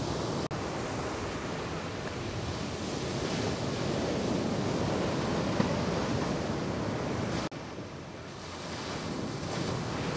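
Ocean surf: waves breaking heavily in the shorebreak and washing up a sandy beach, a steady rushing roar. The sound drops out for an instant twice, about half a second in and again near the end, at cuts between shots.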